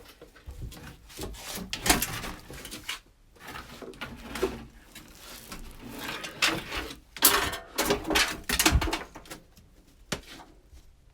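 Hands rummaging through clutter: objects knocked, shifted and scraped in an irregular series of clunks and rustles, the loudest knocks between about seven and nine seconds in.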